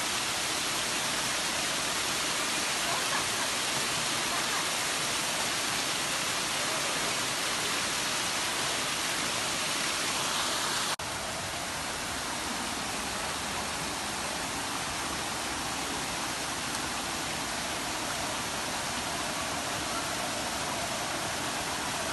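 Steady rush of falling stream water cascading over a small weir and rocks. The level drops a little, suddenly, about halfway through.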